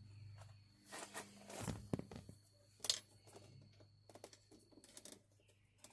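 Quiet, scattered clicks, taps and rustles of hand tools and car door trim parts being handled, the sharpest two about two and three seconds in.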